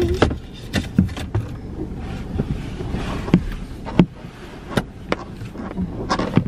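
Scattered light clicks and soft knocks of handling inside a parked car's cabin, about one or two a second at irregular intervals, over a low steady rumble.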